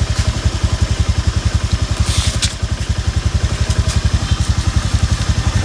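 Honda Beat FI scooter's single-cylinder engine idling, a steady rapid even pulsing. A short hissing scrape cuts in about two seconds in.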